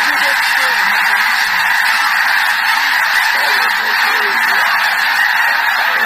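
A huge flock of snow geese calling all at once, a dense, steady din of high-pitched honking that goes on without a break.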